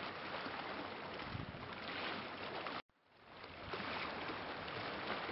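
Steady outdoor hiss of wind and water by the sea, which cuts out abruptly about three seconds in and then fades back in.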